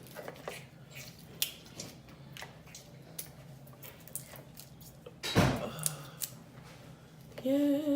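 Close-up messy eating of a seafood boil: scattered wet smacks, clicks and chewing, with one louder, deeper noise about five and a half seconds in. Near the end she starts humming a short tune.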